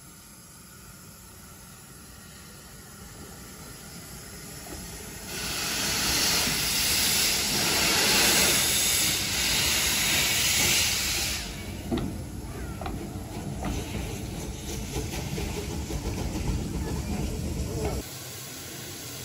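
Steam locomotive letting off a loud hiss of steam that starts suddenly about five seconds in and lasts some six seconds. A lower rumble with scattered clicks and knocks follows, and it cuts off suddenly near the end.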